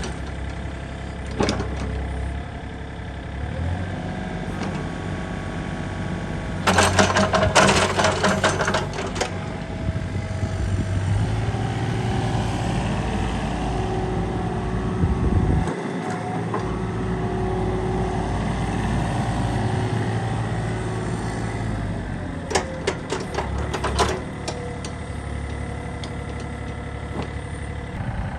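Yanmar ViO33 mini excavator's diesel engine running steadily, with two spells of sharp metallic clattering, about a quarter of the way in and again near the end.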